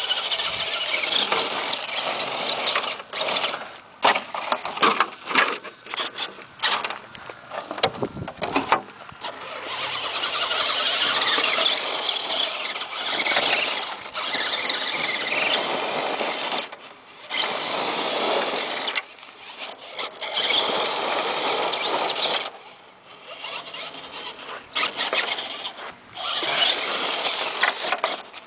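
Radio-controlled scale crawler truck's motor and gears whining high-pitched in bursts as the throttle is worked, rising and dropping off, with short pauses between runs while it climbs a loose rock pile.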